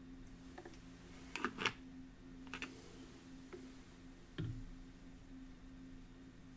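Light clicks and knocks of a plastic reagent bottle against a glass burette and lab glassware while the burette is refilled with sodium hydroxide solution. The sharpest clicks come in a cluster about a second and a half in, followed by a few single knocks, the last a duller thump, all over a steady low electrical hum.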